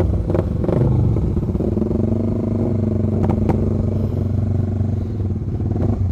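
Honda CB150R's single-cylinder engine idling steadily at an unchanging pitch, with a second motorcycle idling alongside, waiting at a drag start. A few light clicks sound over the engines.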